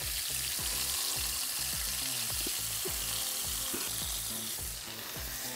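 Salisbury steak patties sizzling steadily in a hot frying pan while the built-up fat is tipped off into a bowl.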